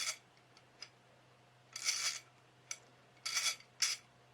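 Tekton 90-tooth 3/8-inch-drive long-handle ratchet clicking in short bursts as it is worked back and forth, a fine rapid buzz of the pawl, four times with a couple of faint single ticks between.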